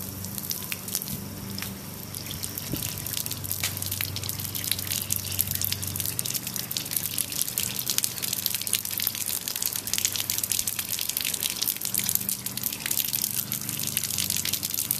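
Garden-hose water running through an unstarted pressure washer and out of its wand nozzle, splattering on concrete in a steady crackling patter: air being bled out of the pump before starting.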